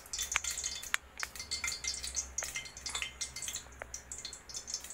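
Hot cooking oil crackling faintly in a pressure cooker: scattered small pops over a light hiss.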